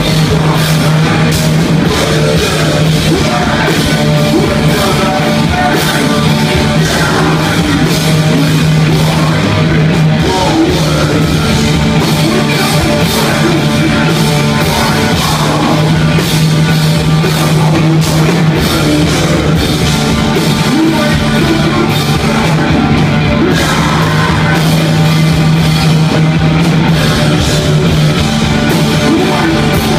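Punk rock band playing live and loud: distorted electric guitars, bass and a drum kit with cymbal hits, with sung and shouted vocals in the mix.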